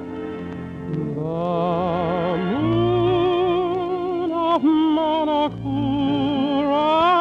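Tenor singing a slow romantic ballad with orchestra accompaniment, holding long notes with a wide vibrato. The voice slides up into a higher held note about two and a half seconds in, breaks off briefly twice, and climbs again near the end.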